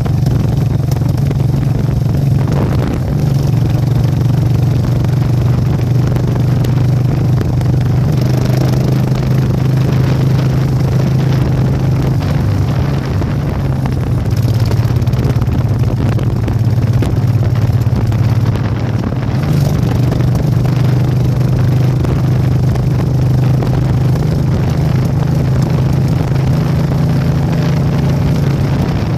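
Motorcycle engine running steadily while riding along a road, a constant low drone that holds the same pitch with only small changes.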